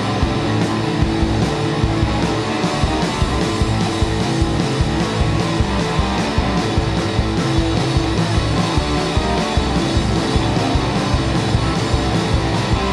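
Live rock band playing, with electric guitars and drums keeping a steady beat.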